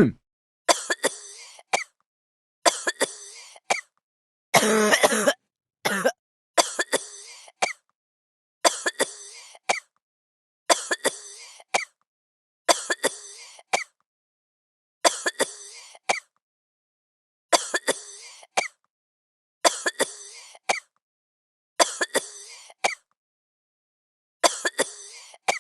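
A person coughing over and over, about a dozen short coughs spaced roughly two seconds apart with dead silence between them, and one longer, unbroken coughing bout about five seconds in.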